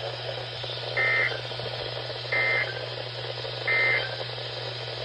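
NOAA Weather Radio's SAME end-of-message data signal: three short, identical buzzing data bursts about a second and a half apart, marking the end of the severe thunderstorm warning, over a steady low hum and hiss on the broadcast.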